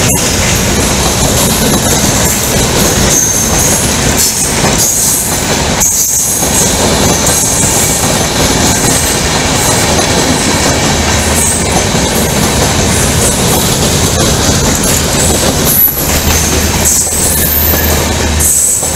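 Bangladesh Railway intercity passenger coaches passing close by on the adjacent track: a continuous rumble and rattle of steel wheels over the rails, with brief high-pitched wheel squeals now and then.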